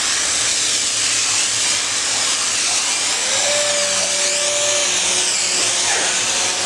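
Foam spray gun shooting polyurethane foam into a fibreglass boat hull's compartments: a loud, steady hiss whose upper part slowly wavers, with a faint brief whine about halfway through.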